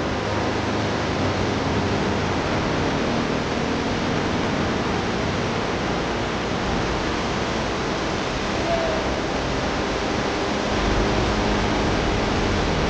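Waterfall: a steady, even rush of falling water, its low end growing heavier about eleven seconds in.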